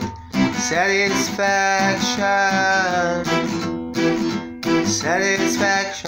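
An acoustic guitar being strummed, with a man singing over it in long held notes.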